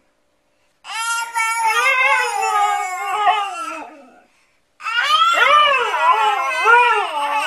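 Siberian husky "talking": drawn-out, howl-like vocalizations whose pitch swoops up and down, in two stretches, the first starting about a second in and the second about five seconds in.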